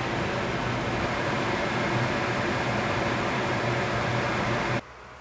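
Steady whir of a fan with a constant low hum, cutting off abruptly near the end.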